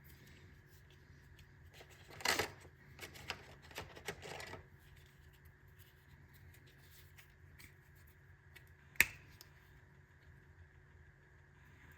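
Handling noises: a couple of seconds of rustling and scraping, then one sharp click about nine seconds in.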